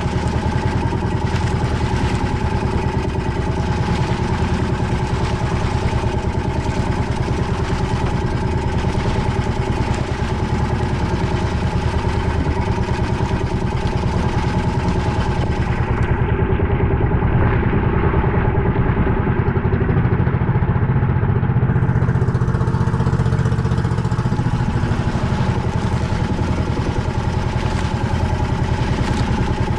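Boat engine running steadily at a constant speed.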